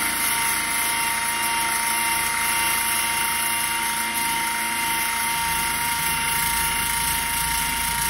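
Cordless rotary tool with an extension and an 80-grit sanding disc, running at a steady speed with a constant high whine while it sands paint off a panel.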